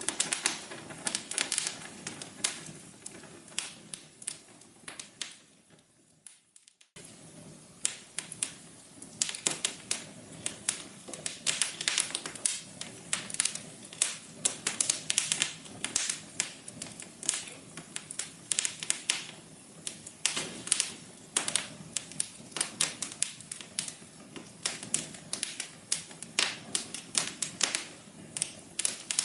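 Wood fire crackling, with rapid irregular sharp pops over a low steady rush. It fades almost to silence around five seconds in, then starts again abruptly about two seconds later.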